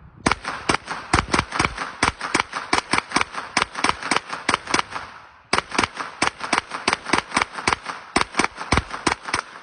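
Suppressed 9mm AR carbine fitted with a Witt Machine Naughty9 suppressor firing two long strings of rapid shots, about five a second, with a brief pause about five seconds in.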